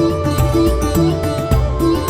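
Background music with a heavy, repeating bass beat and a plucked-string melody.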